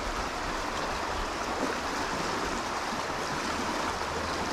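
Riffled trout stream flowing fast over a shallow, rocky bed: a steady rush of moving water.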